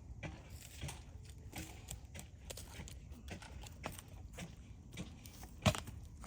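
Mini cows shuffling about, their hooves giving irregular light knocks and scuffs, with one louder knock near the end.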